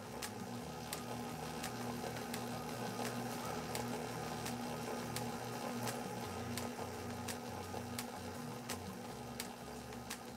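Motorized fishing-line winding machine running steadily as it spools braided line onto a trolling reel, with a regular tick about every 0.7 seconds, under soft background music.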